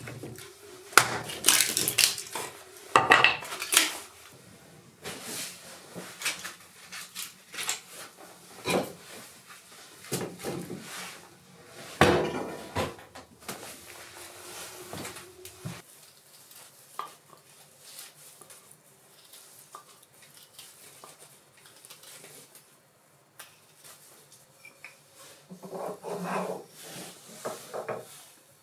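Hatchet strikes splitting kindling from a wooden block on a chopping stump, a string of sharp knocks with pieces of wood clattering. After about 16 seconds only scattered light knocks, with a short cluster of knocks near the end.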